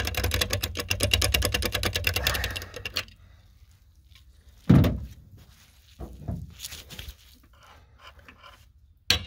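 A rapid, even run of metallic clicks, about a dozen a second for three seconds, as the freed wheel lock nut is turned off with a bolt extractor socket on a long bar. This is followed by a single loud knock a little before five seconds in, a few faint clinks, and a sharp metal clank just before the end.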